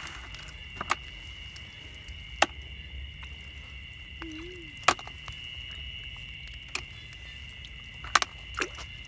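Small splashes and sharp clicks from a hand groping for apple snails in shallow ditch water, about six scattered over several seconds, two close together near the end. Under them runs a steady high-pitched chorus of night insects.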